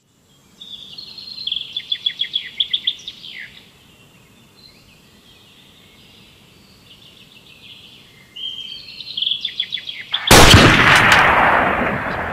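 Small songbirds singing in quick, high trills, in two bouts. About ten seconds in, a sudden loud blast with a few sharp cracks rings on and slowly dies away.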